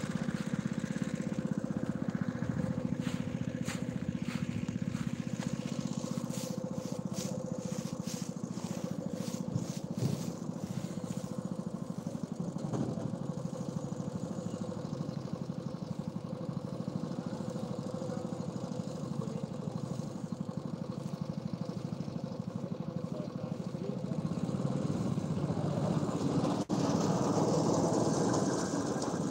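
Small engine of a crop-cutting machine running steadily as it mows a field of kasuri methi (fenugreek), growing louder near the end.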